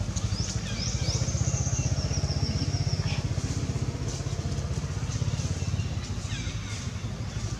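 Steady low engine drone with a fast, even pulse, like a small motor running. A high, thin whistling call slides in about half a second in and holds for a couple of seconds above it.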